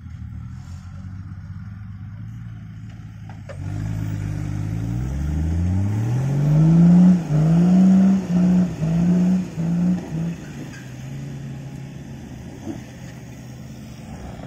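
A four-wheel-drive's engine trying to drive out of soft beach sand where it is bogged. It runs steadily, then about three and a half seconds in the revs climb hard. They are held high in four or five loud surges, then drop back to idle around ten seconds in.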